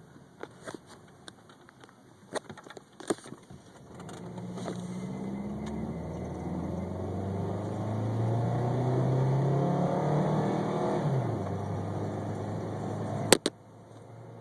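1998 Toyota Camry engine, which has a misfire, revving up slowly for about seven seconds and then dropping back off. A few sharp clicks come before it, and one loud click near the end.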